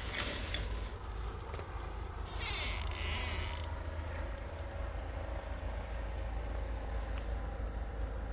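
Wind rumbling on the microphone during a snow storm, with two brief high hissing bursts, one at the start and one about two and a half seconds in.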